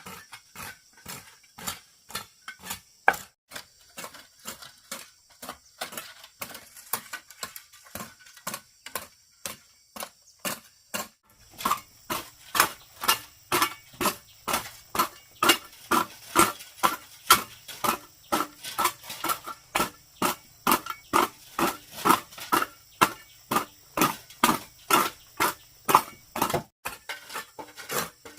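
Repeated sharp knocks, lighter and irregular at first, then steady and stronger at about two to three a second from a little over ten seconds in, each with a short ringing note.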